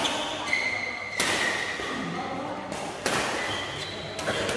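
Badminton rackets striking the shuttlecock in a rally: about four sharp hits, one every second or so, ringing in a large hall. Shoes squeak briefly on the court mat between the shots.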